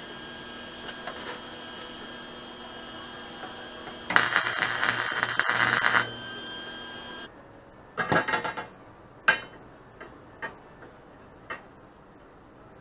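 MIG welder laying a short weld on steel square tubing: a crackling, sizzling burst of about two seconds over a steady hum. A few seconds later come a quick cluster of metal clanks, one sharp knock and a few lighter clicks as steel tubing and tools are handled on the frame.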